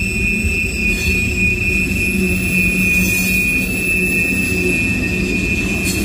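Freight cars of a CSX mixed manifest train (tank cars and boxcars) rolling past: a steady low rumble of steel wheels on rail with a thin, steady high-pitched wheel squeal held throughout.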